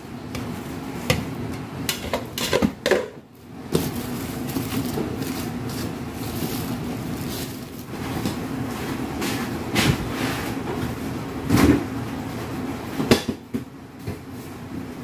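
Kitchenware handling: a rice paddle scraping and tapping in a stainless steel bowl of cooked rice, then scattered knocks and clatters as the bowl is covered and moved and the refrigerator door is opened, over a steady low hum.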